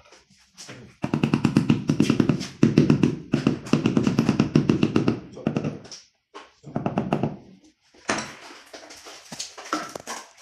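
A marble floor tile being tapped down into its mortar bed with a hammer, a rapid run of knocks lasting about four seconds, then a shorter run a little after the middle.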